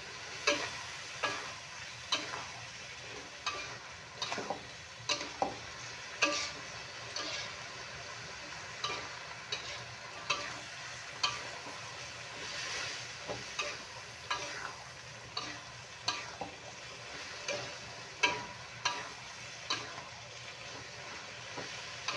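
Metal spatula scraping and knocking against a metal wok as shrimp, carrots and green beans are stir-fried, the strokes coming about once or twice a second over a steady sizzle of frying.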